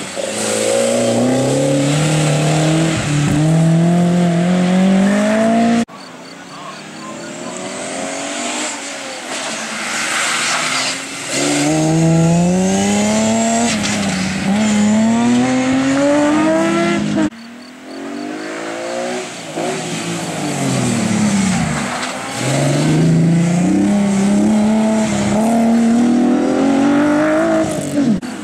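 Race-prepared BMW E30 3 Series slalom cars running hard through the cones, engines revving with a rising pitch that drops back at each lift or gear change and climbs again. The sound comes as three separate runs, each cut off suddenly, about six and seventeen seconds in.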